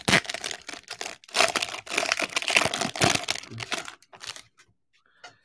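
Crinkling and tearing of a trading-card pack's wrapper as it is ripped open and handled, dying away to a few faint ticks after about four seconds.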